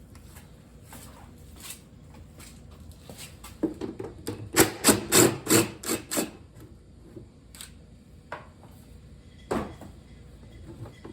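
Hard knocks and clatters from a lawn tractor's gas tank being handled as it is pulled out. About halfway through there is a quick run of about eight sharp knocks, with single knocks before and after.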